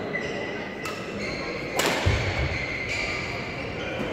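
Badminton rally in a large echoing sports hall: a few sharp racket hits on a shuttlecock, the loudest just before two seconds in, followed by a low thud, with short high squeaks of court shoes on the floor.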